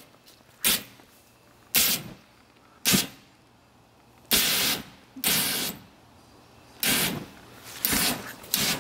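Propane poofer firing in bursts of flame, each a short, noisy whoosh. Three quick puffs come about a second apart, then two longer blasts, then a run of quick puffs near the end.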